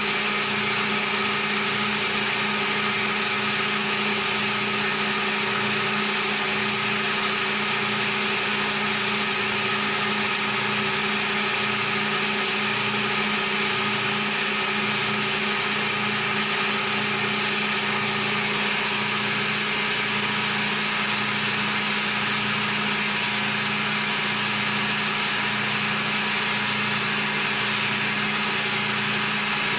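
CNC milling machine cutting a gusset part: a steady spindle whine of several constant tones over cutting noise, with a slow, regular pulse underneath.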